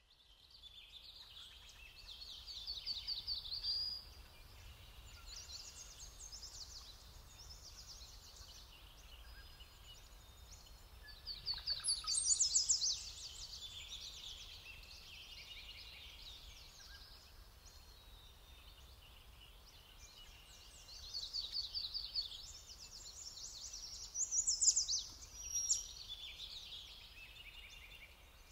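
Songbirds singing: bursts of fast trilled song come every few seconds, loudest near the middle and again near the end, over a faint steady background hiss.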